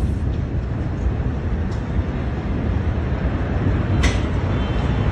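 A steady, loud, low rumbling roar with no clear rhythm or tone, picked up on a phone microphone. A short sharp crackle comes about four seconds in.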